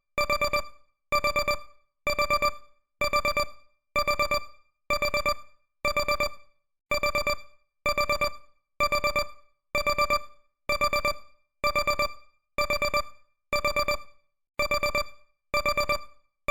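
Countdown timer alarm beeping at the end of the countdown: a short burst of rapid electronic beeps about once a second, each burst at the same pitch and level.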